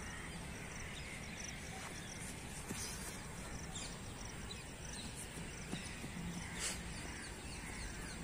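Faint open-air ambience: a steady low rumble, with a small high chirp repeating about every half second and a few faint distant sounds.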